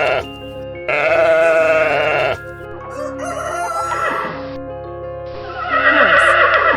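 Rooster crowing, among a few farm-animal calls, over background music with steady held notes. The longest call comes near the end and falls in pitch.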